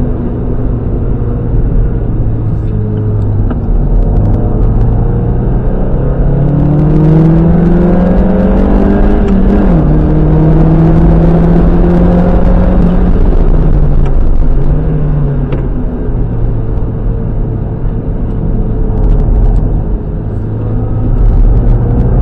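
Mazda MX-5 NB 1.8's four-cylinder engine under load on track, its pitch climbing steadily as it revs up, then dropping sharply at an upshift about nine and a half seconds in. It pulls on in the higher gear and eases back to a lower, steady drone in the last few seconds.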